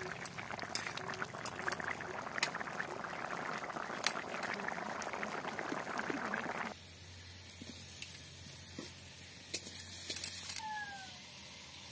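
Fish curry boiling hard in a black wok over a fire, bubbling and steaming with occasional pops, for about the first two-thirds. It then cuts off suddenly to a much quieter background with a few faint clicks.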